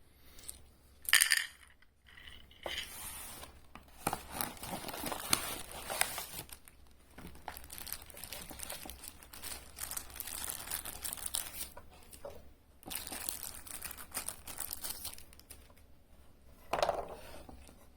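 Plastic packaging being crinkled and torn open, in irregular stretches with a few small clinks of hard parts.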